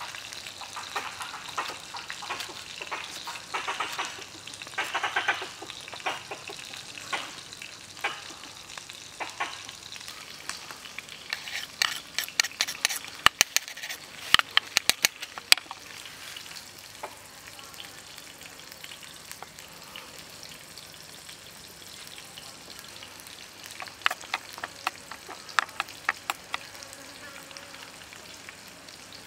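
Kitchen knife chopping a red chili on a wooden board, then a run of sharp clicks and taps as seasoning is scooped into a small bowl. Near the end, light clinks and scrapes come from the knife tip stirring the sauce.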